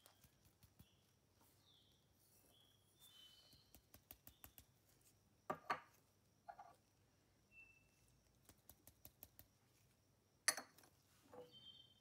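Near silence with faint light taps and clinks of glassware and a ceramic dish being handled on a wooden table, the two loudest about halfway and near the end. A few faint high chirps sound in the background.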